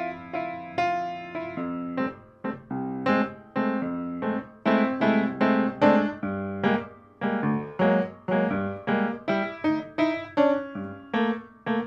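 Solo piano playing silent-film accompaniment: a run of struck notes and chords that fade after each strike, growing quicker and busier about four seconds in.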